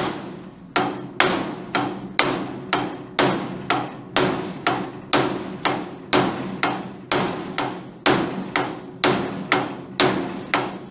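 Hammer striking a steel punch about twice a second, each blow with a short metallic ring, driving a seized bolt out of a sprocket hub; the bolt has broken loose and is moving out under the blows.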